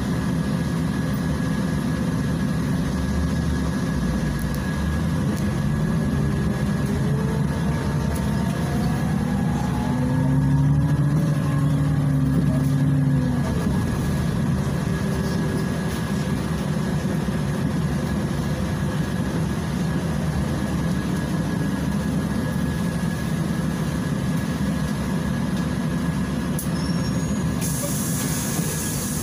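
Inside a Volgabus 5270G2 city bus: its Yuchai YC6L280N natural-gas engine and Voith DIWA automatic gearbox drone steadily while the bus waits at the lights. The drone then rises in pitch as the bus pulls away and accelerates, eases back, and settles into a steady cruise, with a thin high whine throughout.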